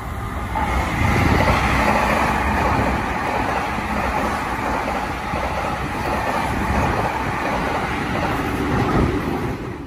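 Seibu 40000 series electric train running past on the near track: steady noise of wheels on rail and running gear, which swells to full loudness about a second in.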